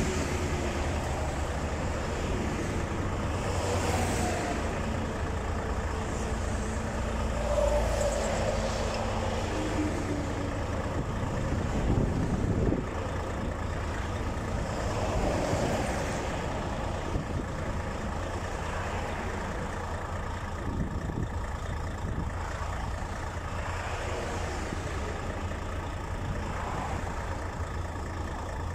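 Highway traffic going past at speed: a steady low rumble that swells as several vehicles pass one after another.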